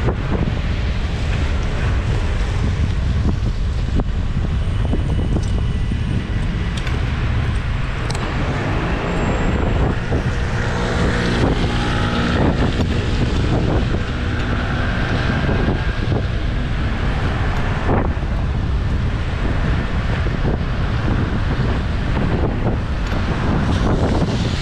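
Wind rumbling on the microphone of a camera on a moving bicycle's handlebars, over the hiss of wet road and rain, with scattered small knocks from bumps in the pavement. About ten seconds in a passing motor vehicle adds a low hum for a few seconds.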